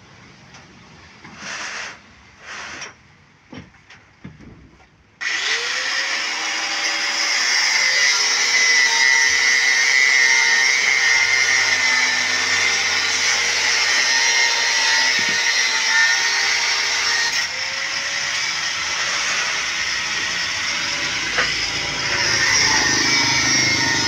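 Angle grinder cutting steel rebar: after a few short, quieter noises it starts suddenly about five seconds in and runs on as a loud, steady, high whine. Its pitch sags and recovers a few times as the disc bites into the bar.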